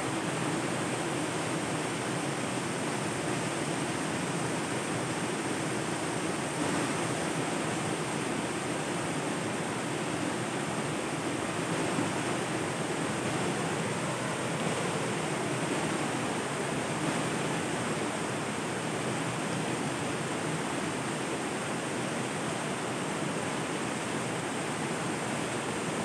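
River water flowing, a steady, even noise with no breaks or rhythm.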